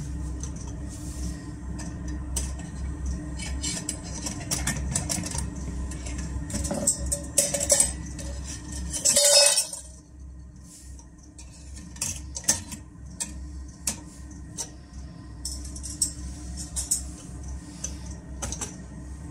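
Metal camp-stove parts being handled and set down on a wooden table: scattered clinks and knocks, with one short, loud rushing noise about halfway through. A diesel heater hums steadily underneath.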